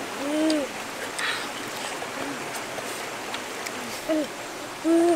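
Several short hummed "mmm" sounds of enjoyment from a boy eating, each rising and falling in pitch, the clearest near the start and at the end, over the steady rush of a stream.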